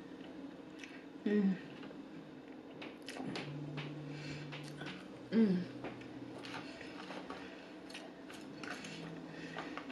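Eating sounds: a plastic fork tapping and scraping in a plastic takeout container of cheese fries, with chewing, and twice a short falling "mm" hum from the eater.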